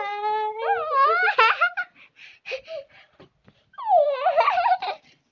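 A young boy and a woman giggling and laughing: a high-pitched burst of laughter for about two seconds, a short lull, then another bout of giggling about four seconds in.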